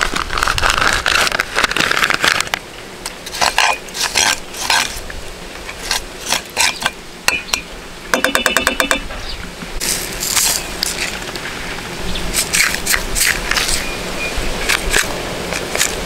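Chilli satay paste sizzling and crackling in hot oil in a frying pan with a dimpled surface, with a metal spoon scraping and clinking on the pan as it spreads the paste. About 8 seconds in the spoon drags across the pan in a fast, ringing rattle.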